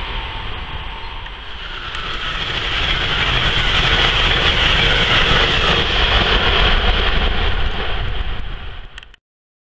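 Passenger train passing at speed: a steady rushing hiss of steel wheels on the rails that grows louder as the coaches go by, then cuts off suddenly near the end.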